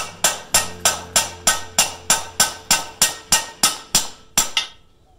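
Hammer blows on a steel drift bar set against a bearing in an aluminium/magnesium motorcycle crankcase half, driving the bearing out. The blows come evenly, about three a second, each a sharp ringing metallic strike, and stop a little after four seconds in.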